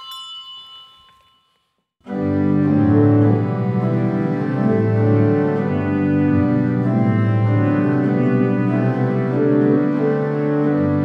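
A small bell's ringing dies away; then, about two seconds in, a church organ starts playing slow, held chords over a stepping bass line.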